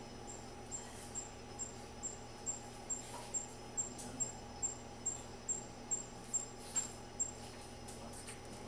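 An insect chirping in a steady, even rhythm, about two short high chirps a second at one unchanging pitch, stopping shortly before the end, over a low steady hum.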